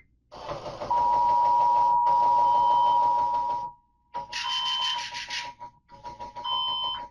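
Emergency Alert System attention signal: a steady two-tone alert alarm sounding over a harsh buzzing broadcast signal. After about four seconds the buzz breaks into choppy stretches and the tone carries on more faintly.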